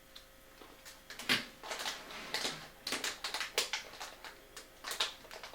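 Pages of a LEGO instruction booklet being turned and handled: an irregular string of short paper rustles and flicks, loudest about a second in and again near the end.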